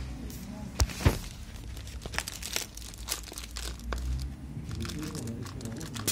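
Plastic postal mailer and its packing tape crinkling and crackling as hands pull and tear at the parcel wrapping, with two sharp knocks about a second in.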